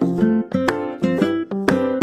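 Background music: a light plucked-string tune, guitar or ukulele, with notes struck at a steady bouncy rhythm.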